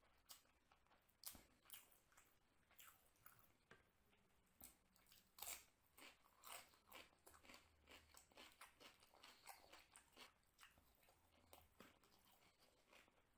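Quiet, close-miked chewing of a mouthful of chicken biryani: irregular wet mouth smacks and clicks, a few each second.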